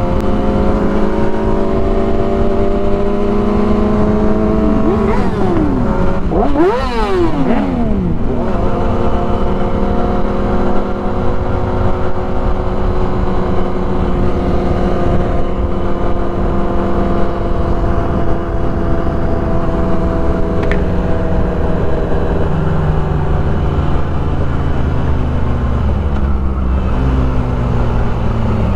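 Motorcycle engine running at a steady cruise under heavy wind rush. About five seconds in, the engine pitch briefly climbs and falls sharply a couple of times, then settles back to a steady drone.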